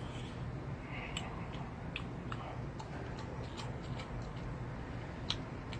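Eating sounds: about a dozen small, sharp clicks scattered through, from chopsticks working in an earthenware pot and from chewing, with the sharpest near the end, over a steady low hum.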